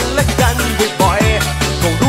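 1990s Thai pop music with an electronic dance backing: a steady bass beat and repeated sounds that fall in pitch.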